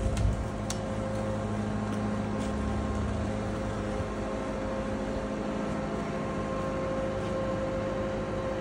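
A vehicle engine running steadily at constant speed, a smooth drone with a faint whine and a few light clicks near the start.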